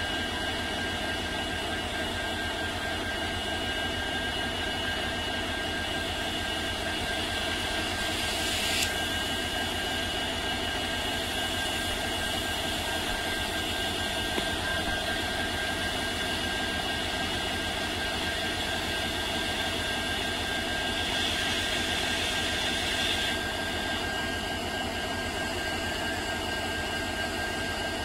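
WDG4 diesel-electric locomotive's EMD two-stroke V16 engine idling steadily, a low rumble with a steady high whine over it. A short rush of hiss comes about nine seconds in and a longer one a little past twenty seconds.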